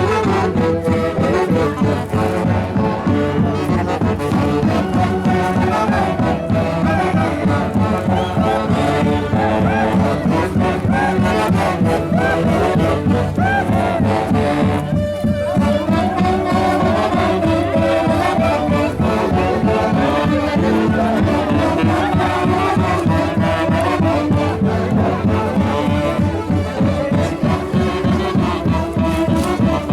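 Live band music led by brass over a steady, driving beat, loud and continuous, with a brief dip in the brass about halfway through.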